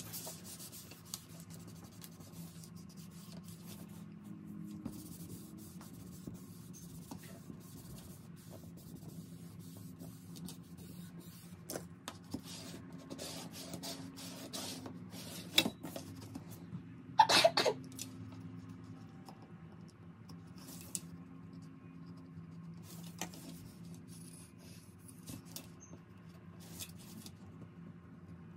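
Paper rubbing and scraping against a plastic tray as a printed image is smoothed flat by hand and with a small card scraper, in scattered short strokes over a steady low hum. A brief louder sound comes about 17 seconds in.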